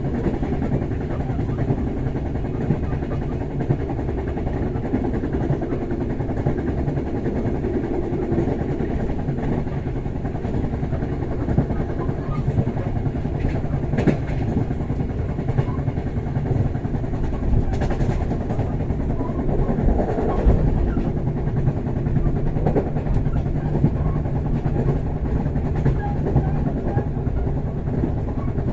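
Steady low rumble of the Bengawan passenger train running on the rails, heard inside the carriage, with a few faint clicks about halfway through.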